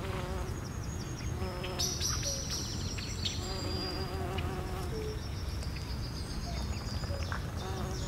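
Insects buzzing in short, wavering bouts, with thin high-pitched tones over a steady low rumble.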